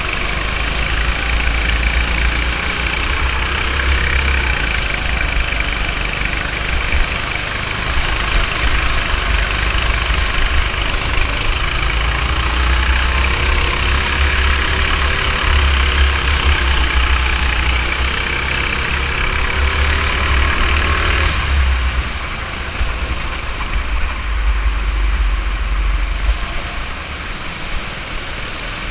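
Go-kart engine running at speed under the driver, its pitch rising and falling between about twelve and twenty-one seconds in, then a little quieter after that.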